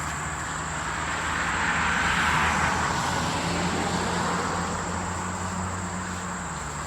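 A passing vehicle: its noise swells to a peak about two seconds in and then slowly fades, over a steady low hum.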